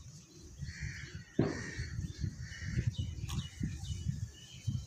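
Plastic rustling and light knocks from a toy RC helicopter being handled over its clear plastic packaging tray. A louder, harsher bird call comes about a second and a half in.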